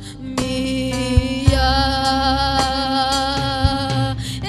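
A woman singing a slow gospel worship song over instrumental accompaniment, holding long steady notes.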